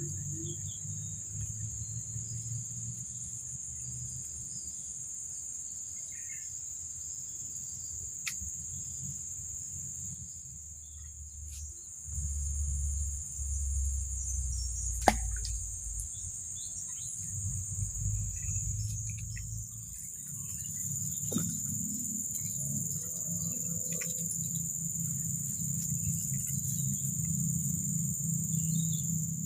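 Steady high-pitched insect chorus, with a low rumble underneath and a few sharp clicks, the loudest about halfway through.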